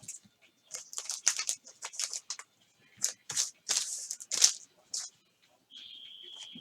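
Basketball trading cards and a pack wrapper being handled: a quick run of short rustles and card slides. A faint steady high tone comes in near the end.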